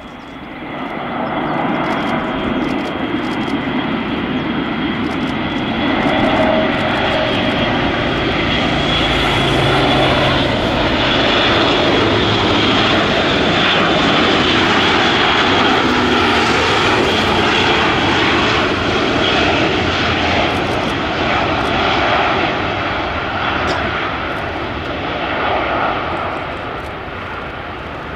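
Airbus A400M's four turboprop engines on landing approach, flying past low: a loud, steady propeller drone with a high whine over it, growing louder about a second in and easing off near the end.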